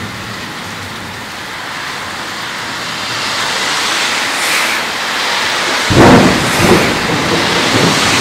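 Rain falling steadily and growing louder, then a sudden loud clap of thunder about six seconds in that goes on rumbling, with further peaks in the rumble.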